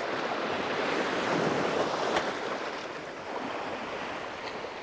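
Sea surf washing against rocky ledges, swelling about a second in and then easing off.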